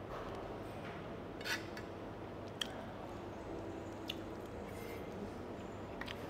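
Eating sounds: a person chewing, with a few short sharp clicks, about one and a half, two and a half and four seconds in, over a steady low room hum.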